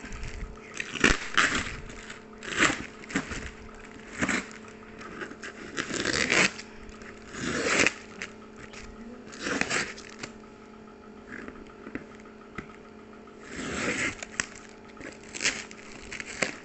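Plastic stretch wrap and packing tape being pulled, torn and crinkled off a cardboard box by hand, in irregular scratchy bursts every second or two, over a faint steady hum.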